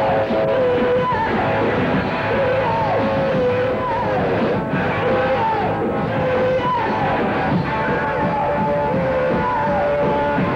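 Live rock band playing loud, with electric guitar notes repeatedly bending and sliding in pitch.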